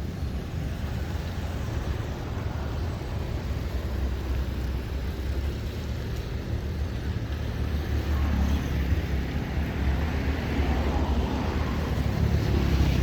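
Steady low engine rumble with outdoor background noise, growing somewhat louder over the last few seconds.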